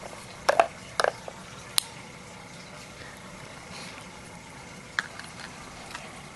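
Hard plastic knocks and clicks from a Kyjen Paw Hide puzzle toy as a dog knocks its yellow plastic cups out of the red plastic paw: a cluster of knocks in the first two seconds, then a few lighter clicks about five seconds in.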